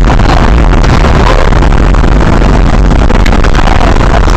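Loud, steady road and wind noise of a car travelling at highway speed, recorded by a dash camera's microphone and overloaded into a harsh, distorted roar.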